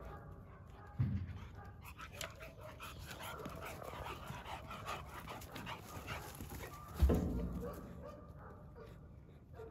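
Four-month-old North American Mastiff puppies playing, panting and whimpering, with small scuffles and clicks as they move over dry leaves and twigs. Two dull low thumps come about a second in and near seven seconds, the second the louder.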